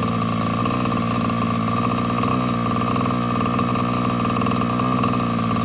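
Losi MTXL RC monster truck's 23cc two-stroke gas engine idling steadily at a constant pitch.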